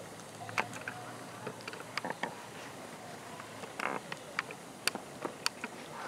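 Wood fire crackling in a steel fire pit: irregular sharp pops and snaps over a low steady hiss.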